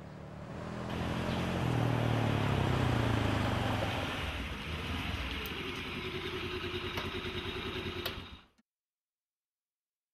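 Motor scooters and a small car driving past close by, their engines swelling in the first few seconds as they approach and then running steadily. The sound cuts off suddenly near the end.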